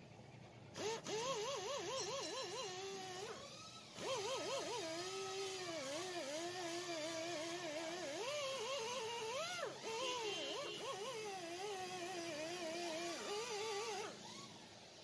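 A long, wavering wail from a single voice, warbling quickly up and down in pitch, in two stretches with a short break about four seconds in.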